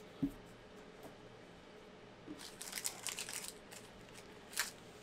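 Basketball trading cards being handled and slid over one another as they are flipped through. There is a soft tap just after the start, a few brief rustles about halfway through, and a light click near the end.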